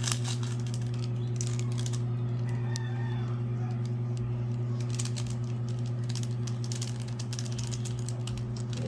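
Foil seasoning sachets tapped and crinkled over a bowl: a few short clusters of light taps and rustling, over a steady low hum.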